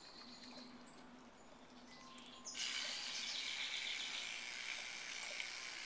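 Electric toothbrush humming faintly, then from about two and a half seconds in a louder steady buzzing as it brushes a dog's teeth.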